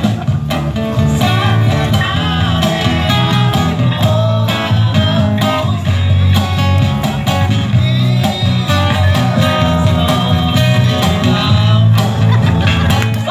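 Live acoustic band music: acoustic guitar strumming over a cajon beat, with a man singing into a microphone through a PA speaker.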